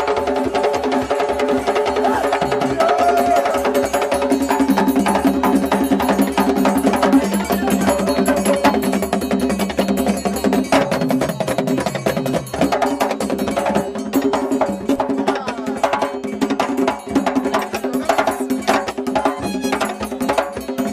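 Zaouli dance music played on hand drums: a fast, dense drum rhythm with steady held tones sounding above it.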